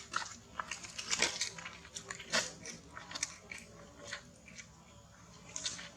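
A baby monkey chewing crunchy food: an irregular run of crisp crunches and bites, the loudest a little over a second and about two and a half seconds in.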